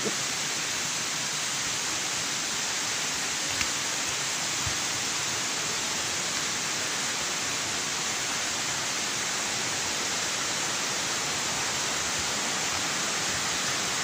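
Steady rushing of water from a hill stream and its cascades, an even hiss that holds the same level throughout. A faint tap about three and a half seconds in.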